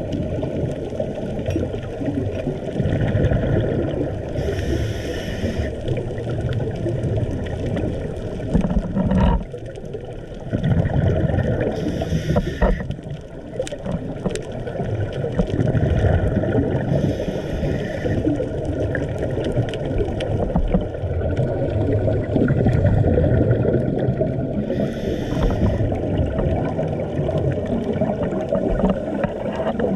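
Underwater sound picked up through a dive camera: a steady low rumble of water movement, broken four times, about every six to eight seconds, by a second or so of hissing, bubbling scuba regulator exhaust as a diver breathes out. A few faint ticks fall in the middle.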